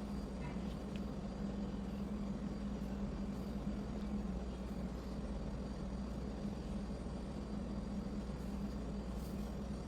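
A steady low mechanical hum that holds the same level throughout, with a couple of faint clicks about half a second in.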